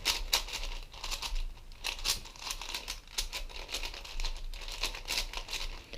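A 4x4 speedcube's plastic layers being turned quickly through a parity algorithm: an uneven run of clicks and scrapes, a few a second.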